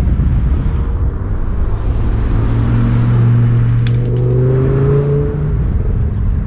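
A car engine passing on the road alongside, a steady low hum for a few seconds in the middle with a slightly rising tone toward its end, over wind rumbling on the microphone.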